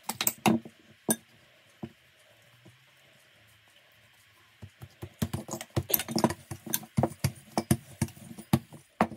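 A spoon clinks against a bowl a few times as filling is scooped onto dough. After a quiet pause, a quick run of light clicks and taps comes as the dough is rolled out with a rolling pin on a silicone mat.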